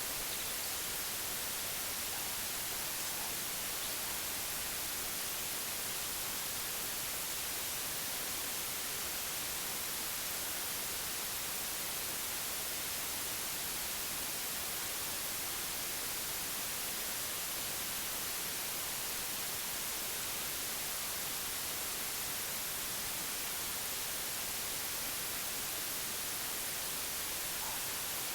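Steady white noise, an even hiss that does not change, brightest in the high treble.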